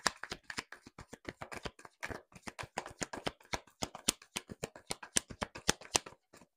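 Rapid, irregular sharp clicks and taps, several a second.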